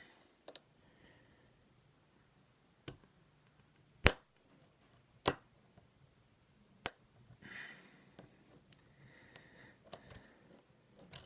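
Lock picking in an ASSA 700 lock cylinder: about six sharp metallic clicks at uneven intervals as the pick and tension tool work the back pins, with faint scraping in between.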